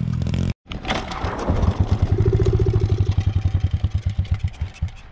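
Pro Tork TR100F pit bike's small single-cylinder engine running at low revs, a quick, even putt-putt that fades toward the end. An edit cuts the sound off about half a second in.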